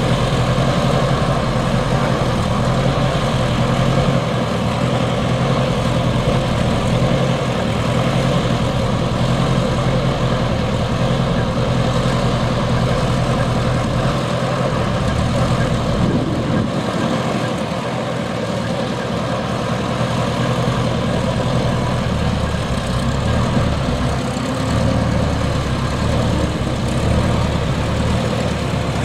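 Schweizer 300C helicopter's four-cylinder Lycoming piston engine running steadily at idle on the ground, its main rotor turning slowly.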